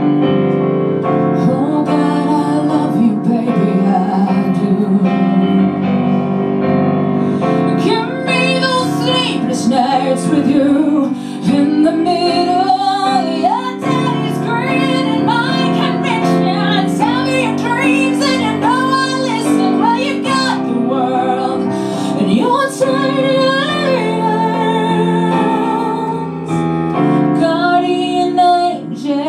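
Song with a woman singing over piano accompaniment; from about eight seconds in, the voice sings flowing, wavering runs above the held piano chords.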